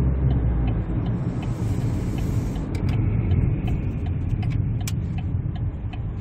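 Cabin noise of a 2014 Chevrolet Spark city car on the move: a steady low engine and road rumble, with a faint regular ticking over it.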